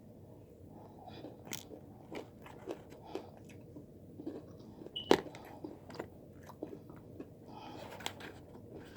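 Close-miked chewing of food: crunches and wet mouth clicks, the sharpest about five seconds in.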